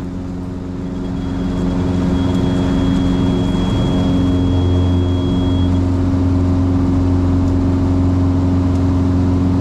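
Cessna 170's six-cylinder piston engine and propeller at takeoff power, heard from inside the cockpit: the sound swells over the first couple of seconds and then runs steady as the plane leaves the ground. A faint, thin high tone sounds for several seconds partway through.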